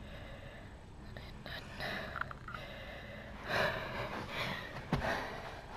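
A boy breathing hard in loud gasps between sets of pull-ups, out of breath from the exertion. A short knock comes about five seconds in.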